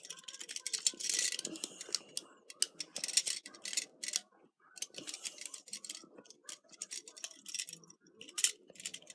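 Metal handcuffs being worked in the keyhole with an inserted tool, turned again and again to open the lock: irregular small metallic clicks, rattles and scrapes.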